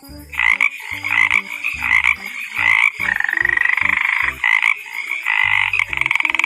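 Frog croaking: a run of short pulsed calls, with one longer rattling trill about three seconds in. Low thumps recur underneath.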